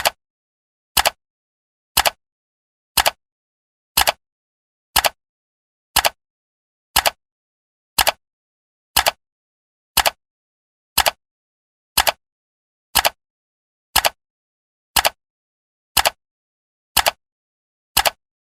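Countdown timer's ticking sound effect: one short, sharp tick every second, evenly spaced, with silence between the ticks.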